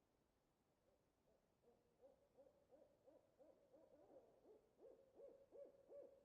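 Owl hooting: a faint, quick series of short hoots, about three a second, that begins about a second in and grows louder toward the end.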